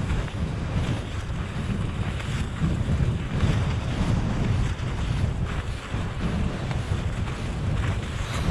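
Wind buffeting the microphone: a gusty, fluttering low rumble.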